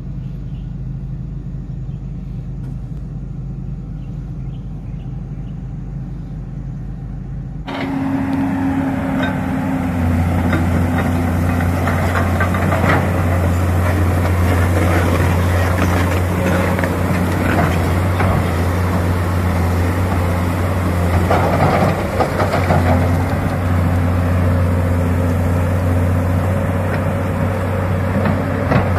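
Komatsu PC200 excavator's diesel engine running at a low steady idle. About eight seconds in it gets louder, with a strong steady low drone and repeated clanks as the machine crawls on one track, its other sprocket's bolts all sheared.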